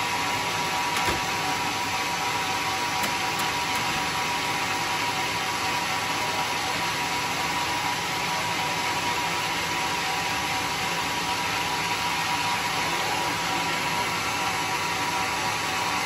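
Sawmill saw running steadily, a constant mechanical noise with a high, even whine.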